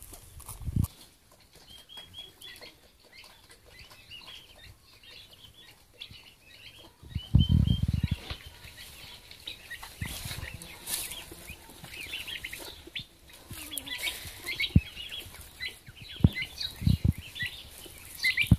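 Short, high peeping and chirping calls of small birds, repeated throughout, with a brief loud muffled rustling about seven seconds in and a few sharp knocks near the end.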